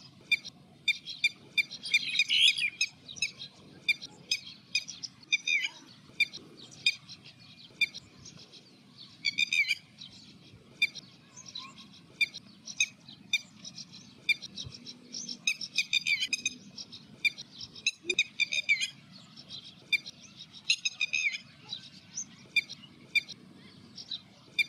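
Red-wattled lapwing calling over and over: loud, sharp, high notes in quick runs every second or two.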